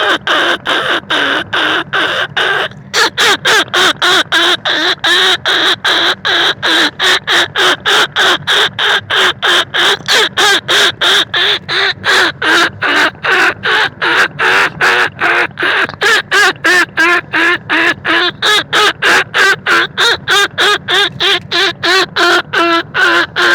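Rat-hunting lure call meant to draw rice-field rats and bandicoot rats: short squeaky chirps repeated rapidly and steadily, about three a second, with a brief break about three seconds in.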